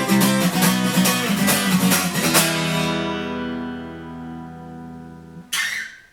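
Acoustic guitar strumming a steady rhythm, ending on a final chord that is left to ring and slowly fade. Near the end there is a short scratchy sound, and the ringing cuts off as the strings are damped.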